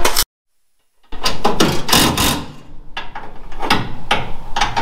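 Socket ratchet clicking in repeated short strokes, tightening a mounting bolt that is going in tight. A second of dead silence comes just before it begins.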